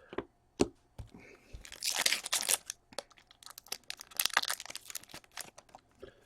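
Trading cards being slid into thin plastic penny sleeves: the plastic crinkles and rustles in two longer bursts about two and four seconds in, with a few sharp taps of cards being handled.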